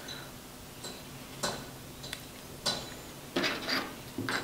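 Light clicks and taps from a handheld one-axis smartphone gimbal selfie stick being handled, a few sharp ticks spaced out at first and more in the second half.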